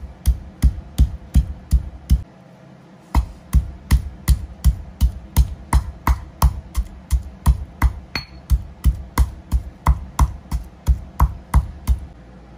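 Stone pestle pounding ginger in a granite mortar: steady thuds a little under three a second, with a break of about a second near two seconds in.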